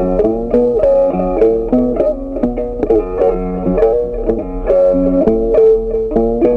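Background music: a plucked-string instrument playing a quick melody of short, separate notes.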